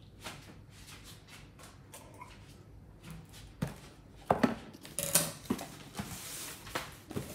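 Things being handled on a kitchen counter: scattered light clicks and knocks, then louder knocks and rustling from about four seconds in, as a cardboard parcel is moved about. A dishwasher hums faintly underneath.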